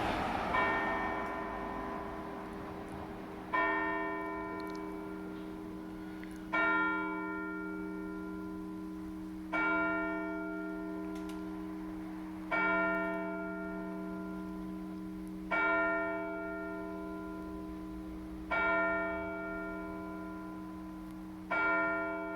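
A single church bell tolling slowly, struck eight times about every three seconds, each stroke ringing on and fading before the next.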